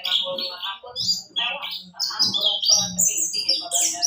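Chestnut-capped thrush (anis kembang) calling in a rapid run of short, harsh chirping notes, many of them sliding down in pitch. This is the rough ngriwik chatter used as a lure to set other birds of its kind calling.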